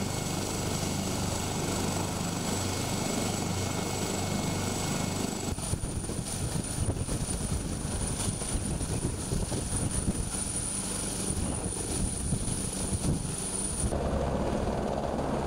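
Turbine helicopter running close by, its rotor and engines making a steady noise with a high whine above. The sound changes abruptly about five and a half seconds in, and again near the end.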